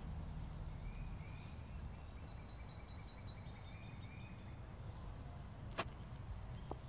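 Quiet outdoor background: a low steady rumble, with a bird's short rising-and-falling chirps repeating faintly, and a sharp click about six seconds in.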